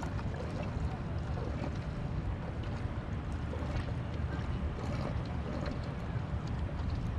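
Steady wind rumble on the microphone out on open water, with a few faint ticks.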